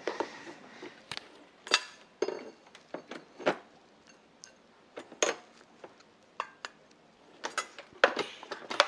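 Rice being scooped with a plastic rice paddle into a metal rice bowl: scattered clinks, taps and knocks of paddle against bowl and pot, about a dozen sharp ones spread over the several seconds.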